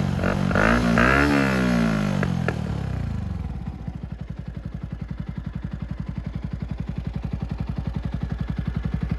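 2010 Yamaha YZF-R125's 125 cc single-cylinder four-stroke engine through a Leo Vince full exhaust with dB killer: two quick throttle blips with a few sharp pops as the revs drop, then it settles about three seconds in to a steady idle with a rapid, even exhaust pulse.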